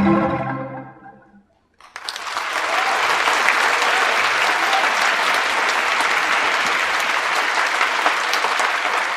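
The ensemble's final chord dies away, a moment of silence follows, and then the audience breaks into steady applause about two seconds in.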